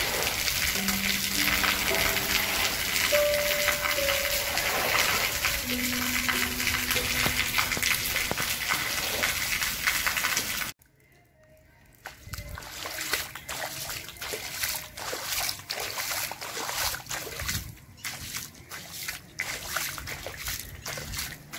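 Harp music over a steady hiss of rain, which cuts off suddenly about halfway through. Then, after a brief hush, shallow water on a concrete roof splashing and sloshing, with many irregular light slaps and taps.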